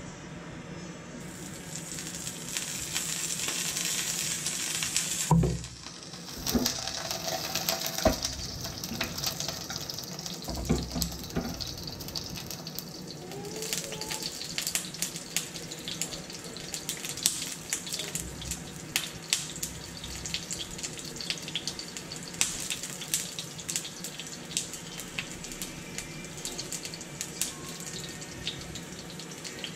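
Sesame oil sizzling in a frying pan around ginger, scallion and dried spices: a steady hiss with frequent sharp crackles and pops. A single loud knock about five seconds in.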